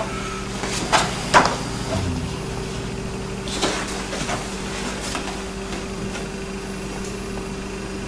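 Paper being handled: a few brief rustles and taps as comic pages and sheets of artwork are moved, over a steady low hum.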